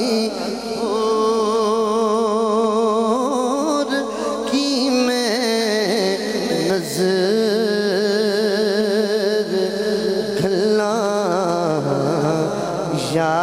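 A man singing a Punjabi naat, drawing out long wavering held notes.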